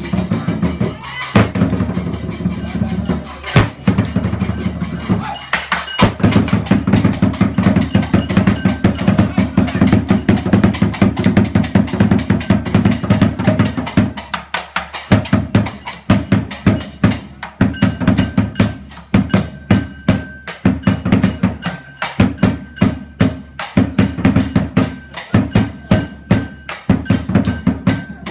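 Lion dance drumming: a big drum beaten in a fast, steady rhythm with clashing cymbals, easing off briefly about halfway through.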